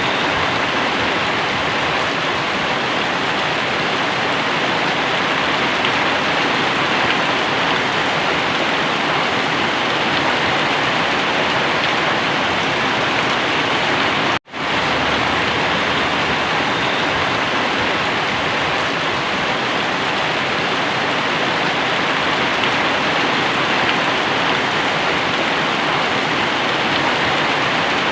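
Very heavy rain pouring steadily, a loud dense hiss that cuts out for an instant about halfway through.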